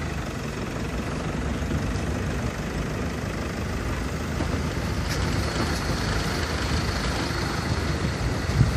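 Motor vehicle engine running steadily with a low rumble. A faint high steady tone joins about five seconds in, and a short low thump comes near the end.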